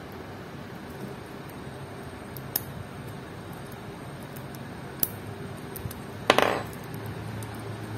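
Light metallic clicks from fine steel tweezers and a stainless steel watch bracelet's end link being handled while the bracelet is refitted to the watch. There are a few faint ticks, then one louder, sharper click about six seconds in.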